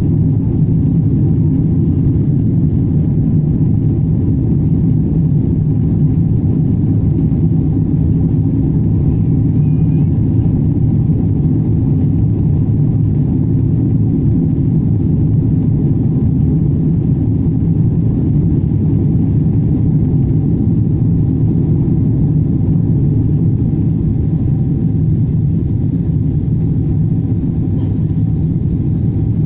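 Steady cabin rumble of a Boeing 777-200 climbing after takeoff: engine and airflow noise heard from inside the passenger cabin, deep and unchanging.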